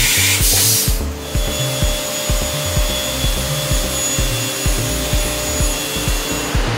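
Background music with a steady beat, opening with a loud hiss that lasts about a second.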